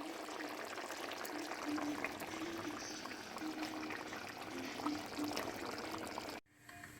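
Steady sound of water, which cuts off abruptly about six and a half seconds in.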